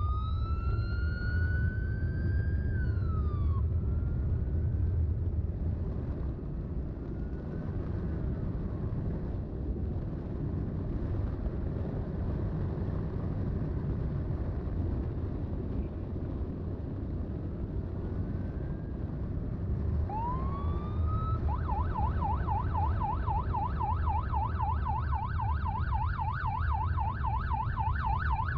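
Electronic siren sounding a wail that rises and falls over the first few seconds, fainter sweeps through the middle, then a rising wail about two-thirds in that switches to a fast up-and-down yelp. Underneath runs the steady low rumble of a motorcycle underway, engine and wind.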